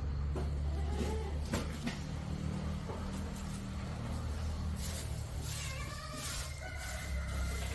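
Farm animals calling faintly over a steady low hum, with a thin, wavering call about five to six seconds in.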